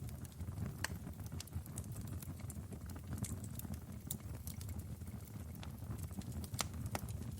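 Fire burning in a fireplace: a low, steady rumble of flames with irregular sharp crackles and pops, the loudest about six and a half seconds in.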